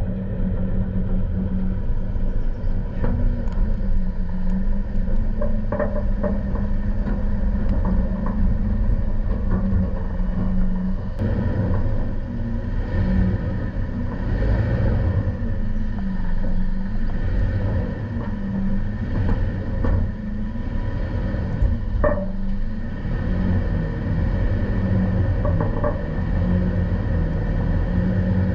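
Toyota Tacoma driving on a rough dirt off-road trail: a steady low engine hum and rumble, broken by a few short knocks and squeaks from the truck over the bumps, the clearest about 22 seconds in.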